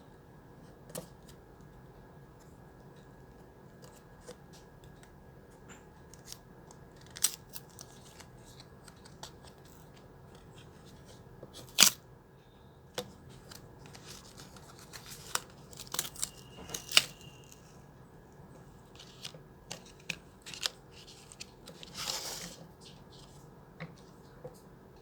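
Plastic blister packaging of a SanDisk Cruzer Blade pen drive being handled and opened: scattered clicks, crinkles and snaps. The loudest is a sharp snap about twelve seconds in, and there is a short rustle about 22 seconds in.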